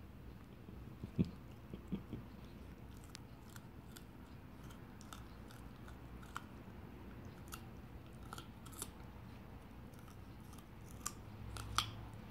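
Teething puppy gnawing on a raw carrot held in a person's hand: irregular small crunches and clicks of teeth on carrot.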